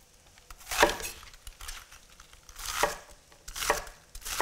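Chef's knife slicing through bok choy stalks onto a wooden butcher-block cutting board: a few separate cuts, a second or two apart.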